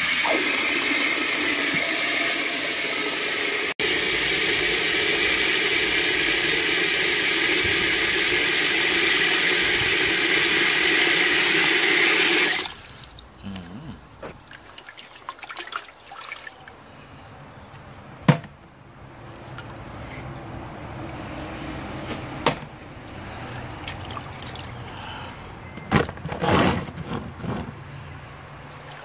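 Tap water pouring steadily into a large aluminium pot of whole fish, a loud even rush that stops suddenly about halfway through. Then quieter sloshing and splashing as hands rinse the fish in the water-filled pot, with a few sharp knocks.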